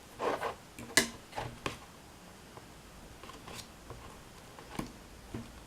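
Scattered light clicks and scrapes of small objects being handled, with the sharpest click about a second in.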